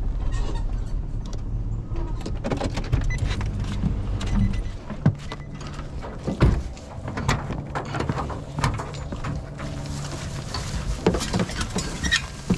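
Footsteps crunching through dry leaf litter, with rustling and knocks from the camera being carried, beside a pickup truck whose engine hums steadily underneath.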